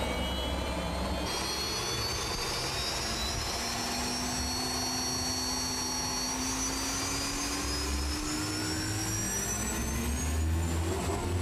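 A turboshaft gas-turbine engine in a racing boat runs with a high whine whose pitch climbs steadily as the engine spools up and the boat gets under way. A lower tone rises with it over a steady rumble.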